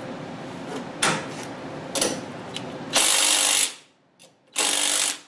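A DeWalt cordless power tool with a socket on a nut on a go-kart frame, run in two short bursts: one about three seconds in, lasting under a second, and a shorter one near the end. Before the first burst come a few clicks of the tool and socket being handled and fitted.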